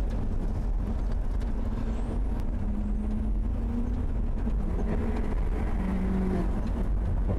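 The Dominator 3 armoured storm-chasing truck driving on a dirt road: steady engine and road noise with a low rumble and a faint engine hum that shifts slightly in pitch.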